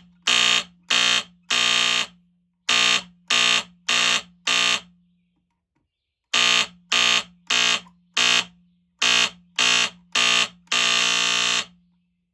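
A 1976 ESL 206 smoke alarm sounding its AC horn in loud, evenly pitched blasts, mostly short at about two a second with a few longer ones. There is a pause of about a second and a half in the middle. The horn has a lot of bass, with a steady low hum under the blasts until it cuts off near the end.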